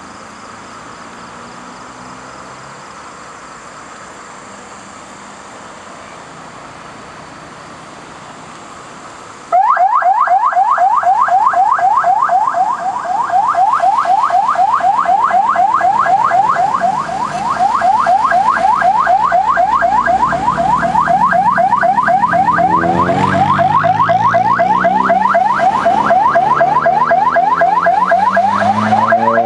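Electronic siren on a convoy car sounding a fast yelp: loud rising chirps repeating several times a second, switched on abruptly about a third of the way in after quieter passing traffic. Car engines rev as the vehicles drive past beneath it in the second half.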